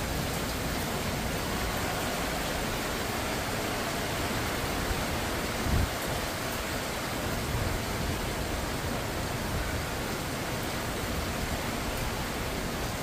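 Heavy typhoon rain and wind: a steady, dense hiss of rain pouring on leaves, with a brief low thump about six seconds in.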